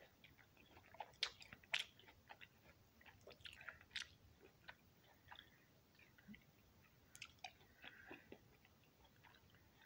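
A person chewing orange slices: a faint, irregular run of short mouth clicks and smacks, the loudest about a second and about two seconds in.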